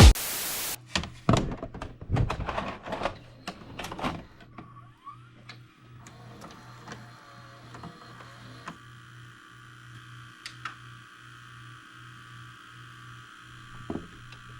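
VCR tape mechanism at work: a brief burst of hiss, then a run of clicks and clunks, then a small motor whirring with a low pulse about twice a second.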